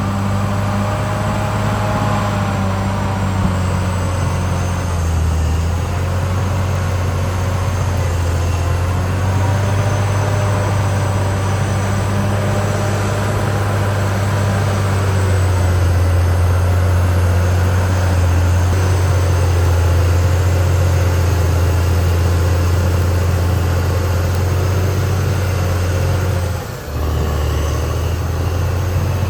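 Caterpillar D6R XL bulldozer running steadily under load, its diesel engine giving a strong low hum with whining undertones from the drivetrain and tracks. The sound briefly drops out near the end.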